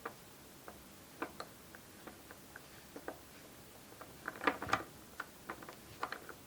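Scattered light clicks and taps of 3D-printed plastic joint pieces being handled and fitted together, with a quick cluster of louder clicks about four and a half seconds in.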